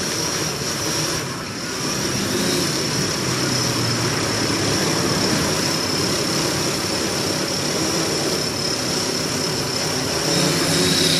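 Propellers and motors of a home-built 3D-printed quadcopter running with a steady high whine, getting louder about ten seconds in. The motors vibrate heavily, which the builder puts down to an old motor.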